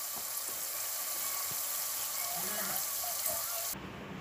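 Battered onion rings deep-frying in hot oil in an aluminium kadai, a steady sizzling hiss that cuts off near the end.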